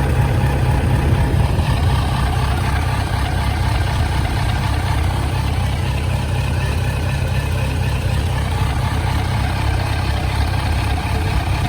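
Kawasaki Z900 inline-four motorcycle engine idling steadily through its stock silencer while warming up.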